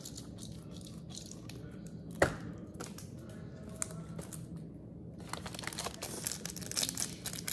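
Thin plastic packaging crinkling and rustling as a small mochi squishy toy is handled and unwrapped, the crinkling thickening over the last couple of seconds. One sharp click about two seconds in.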